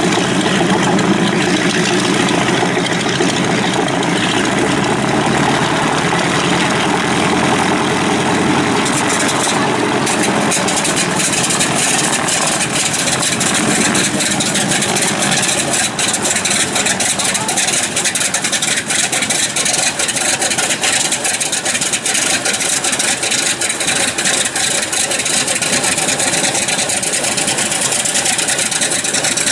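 Grumman TBM Avenger's Wright R-2600 fourteen-cylinder radial engine running at idle on the ground, propeller turning. About nine seconds in the sound turns crackly.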